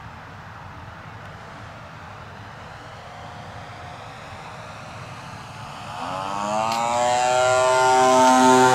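Gasoline engine and propeller of a giant-scale RC Piper J-3 Cub model airplane, faint at first, then from about six seconds in growing loud and rising in pitch as the plane comes in low and passes overhead.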